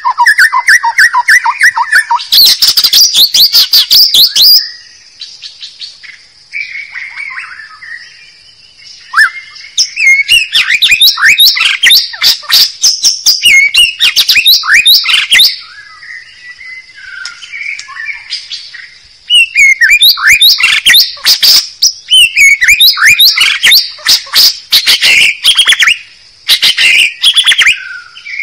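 White-rumped shama (murai batu) singing loudly. Long runs of rapid, fast-repeated notes alternate with quieter, varied warbling phrases, over a steady high-pitched whine.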